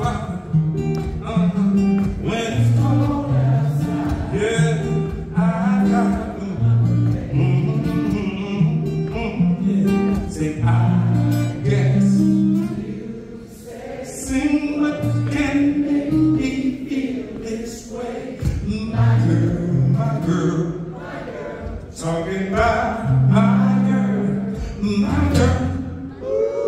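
Live music: a man singing over a strummed acoustic string instrument.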